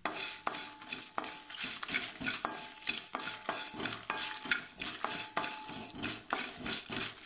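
A wooden spatula stirs coriander seeds and dried red chillies roasting in a metal kadai. The seeds make a steady dry scraping rustle across the pan, with light knocks of the spatula on the metal about twice a second.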